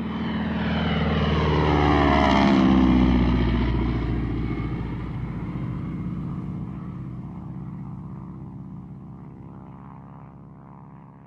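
Propeller airplane flying past overhead. Its engine note swells to loudest about three seconds in, drops sharply in pitch as it passes, then fades away.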